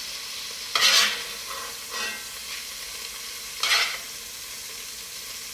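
Beef pieces searing in oil and butter in an enameled cast-iron pot: a steady sizzle, with two louder sputtering bursts, about a second in and again just before four seconds, as the browned meat is moved with tongs.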